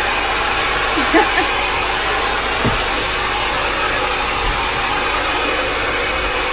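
Hand-held hair dryer blowing steadily as it dries hair, an even rushing blast with a faint steady hum under it.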